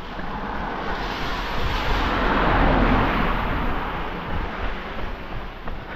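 A vehicle passing on a wet road: its tyre hiss swells to a peak about halfway through, then fades away.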